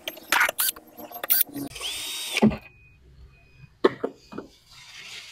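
Cordless drill-driver backing out the screws of a speaker's horn tweeter: a few short whirs and clicks in the first second and a half, then a longer run of about half a second around two seconds in. A few sharp clicks follow about four seconds in.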